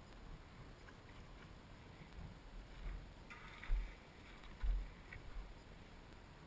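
Footsteps on gravel and rock, with two dull thumps about a second apart in the middle and a short crunch just before them.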